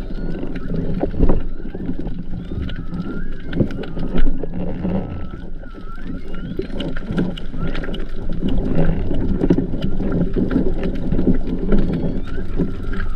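Whale song heard underwater: thin, high calls that glide up and down, repeating again and again, over a steady low rumble of water with scattered sharp clicks.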